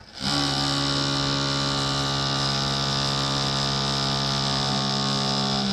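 The small electric motor of a model agriculture robot's grass cutter spinning its cutting disc over grass: a steady pitched hum with a high whine. It starts suddenly just after the beginning and cuts off at the very end.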